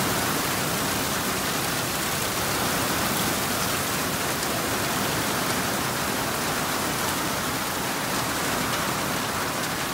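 Heavy rain in a steady downpour over floodwater and woods.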